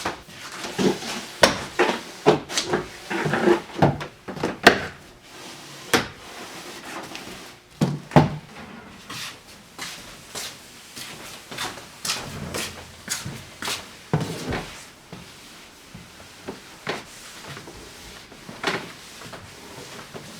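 Irregular knocks, clicks and clatter of objects being handled in a small room, busiest in the first five seconds, with further scattered knocks later on.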